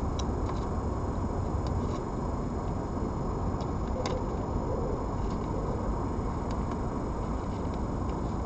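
Steady low rumbling background noise with a few faint clicks scattered through it.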